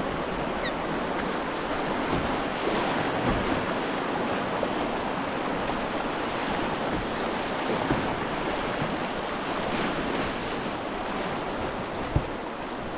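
Whitewater rapids rushing steadily around a loaded canoe running down the river, with some wind on the microphone. A single brief knock near the end.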